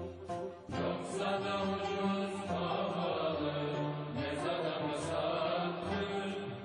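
Background music with sustained notes over a low bass line, dipping briefly about half a second in.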